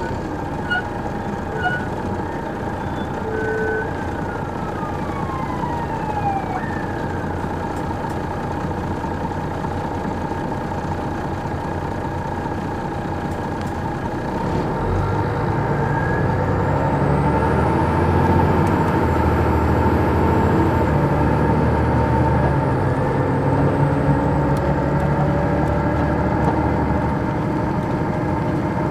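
Interior sound of an MCI D4000 coach with a Detroit Diesel Series 60 engine, running steadily. About halfway through the engine grows louder, with a slowly rising whine, as the bus gathers speed.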